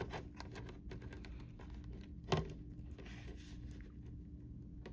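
Light clicks and taps of a plastic action figure being handled, with one sharper click about two and a half seconds in, over a faint steady hum.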